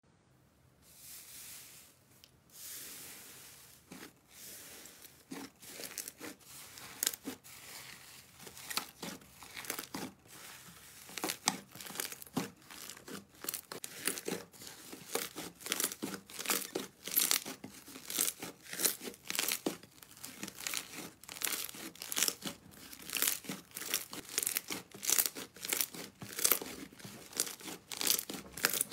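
Hands squeezing, kneading and pulling apart soft slime, making a busy run of small crackles and pops as air pockets burst. Faint at first, it becomes a dense crackling about five seconds in and grows busier.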